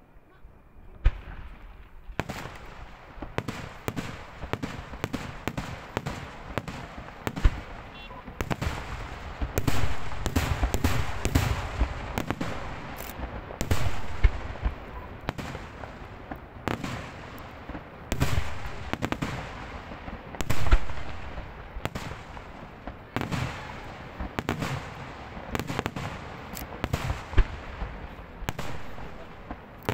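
Fireworks display: a rapid, unbroken barrage of shell bursts and crackling firecracker reports starting about a second in, with louder single bangs standing out several times.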